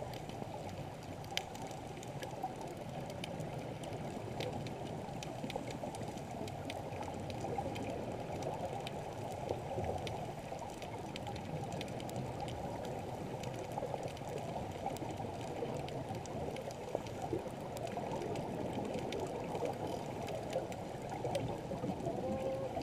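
Muffled underwater water noise: a steady low rush of moving seawater, with faint scattered clicks now and then.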